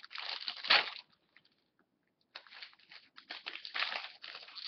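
A hockey card pack's plastic wrapper crinkling and tearing as it is ripped open by hand, in two spells of crackling with a pause of about a second between them.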